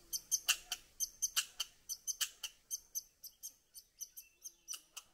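A squirrel's rhythmic run of sharp, squeaky chirps, a few a second, growing fainter toward the end.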